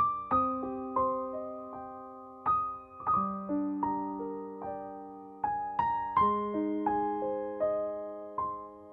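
Background piano music: notes and chords struck every half second to a second, each ringing on and fading.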